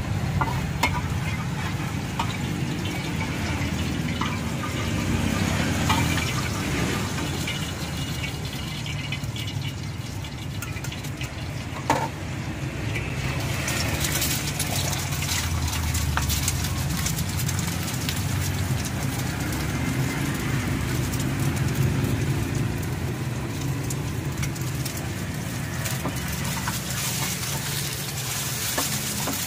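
Oil sizzling in a small frying pan on a gas burner, with a metal spatula scraping, over a steady low rumble. A single sharp knock comes near the middle, and the sizzle then grows louder and brighter as an egg fries in the hot oil.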